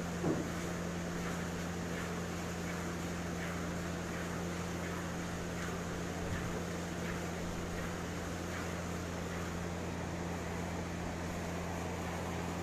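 A steady low electrical hum, like a fan motor, with faint, regularly repeated swishes of milk streams squirting into a metal bucket as a buffalo is milked by hand. A brief pitched sound sits right at the start.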